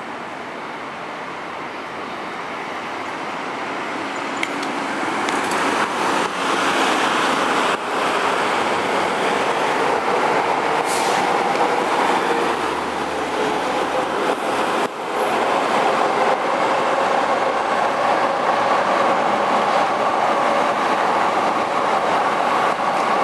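JR commuter train running across an elevated railway viaduct: a steady rumble that swells over the first several seconds and then holds, with faint steady higher tones coming in during the second half.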